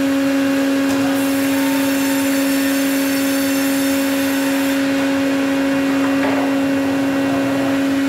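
Large CMA sawmill machine running with a loud, steady hum, and a higher hiss laid over it for about four seconds after the first second.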